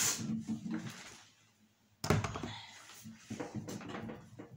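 Kitchen handling sounds: a brief hiss at the start, a thunk about two seconds in, then a run of light, irregular knocks and clatter.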